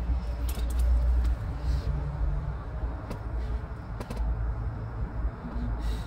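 Scattered light clicks and rustles of hands twisting and handling bus ignition wiring and connectors, over a steady low rumble.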